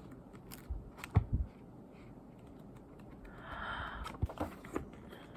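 Handling of a K-pop CD album's packaging: scattered light clicks and taps, two louder knocks about a second in, and a short rustle of paper or plastic about three and a half seconds in.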